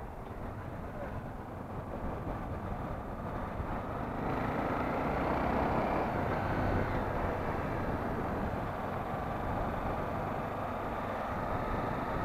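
Motorcycle riding along a city street: the engine runs under wind and road noise, getting louder about four seconds in and then holding steady.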